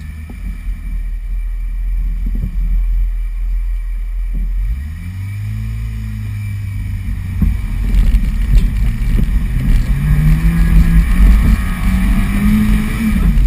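Off-road 4x4's engine running under load, a low rumble at first, then the revs coming up about five seconds in and climbing further in the second half.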